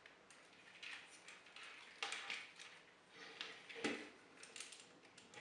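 Hard plastic parts of a Transformers Megatron action figure clicking and knocking as they are handled, split apart and swung on their hinges during transformation: several faint, scattered clicks, the sharpest a little before four seconds in.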